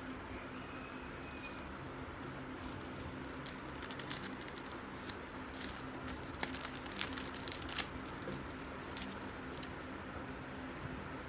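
Thin clear plastic sleeves crinkling as sticker sheets are slid into them and handled: scattered light crackles, clustered in the middle, over a faint steady hum.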